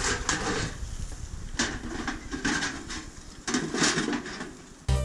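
Thin corrugated galvanized metal sheet scraping and rattling as it is lifted and moved with metal tongs, in three short scratchy bursts. Background music starts abruptly near the end.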